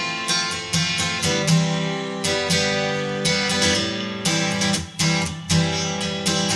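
Background music: strummed acoustic guitar playing a steady rhythm.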